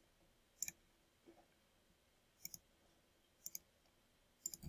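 Computer mouse button clicks: four quick paired clicks, each a press and release, spaced about a second apart, with a fainter one between the first two, over near silence.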